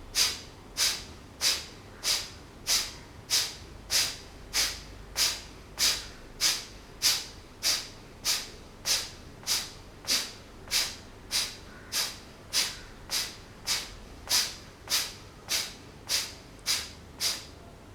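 Kapalabhati breathing: a long run of short, forceful exhalations snorted out through the nostrils, about three sharp hissing puffs every two seconds at a very even pace, stopping just before the end.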